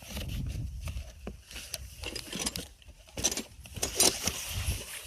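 Cardboard box of a hand lever winch being handled and turned over, with irregular scrapes, rustles and short knocks.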